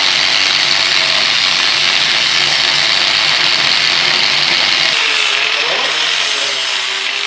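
Angle grinder cutting and grinding the locking tabs off a Honda Shadow VT600's frame neck, running steadily with a loud hiss that changes slightly about five seconds in.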